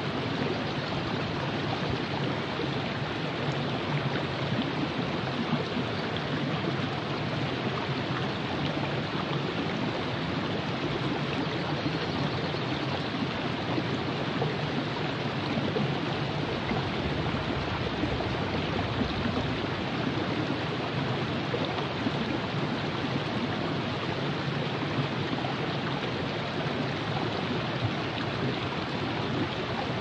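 River water flowing in a steady, unbroken rush.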